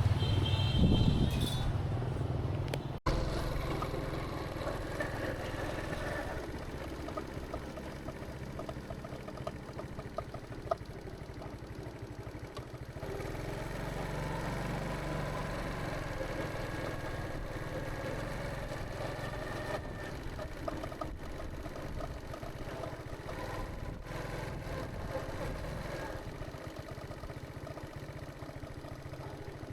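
Motorbike engine close by and fading over the first few seconds, then a steady low engine rumble with general street noise.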